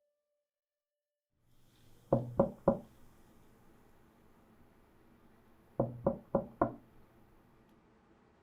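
Knocking on a door: three quick knocks, then after a pause of about three seconds, four more.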